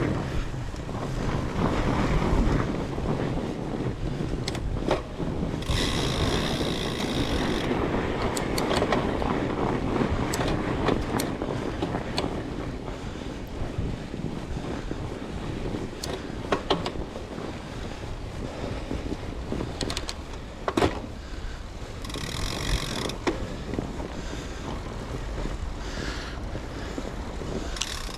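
Wind rushing over an action camera's microphone and tyre rumble from a mountain bike being ridden along a trail, with scattered sharp clicks and rattles from the bike. Two brief bursts of higher, rattly noise come about six seconds in and again about twenty-two seconds in.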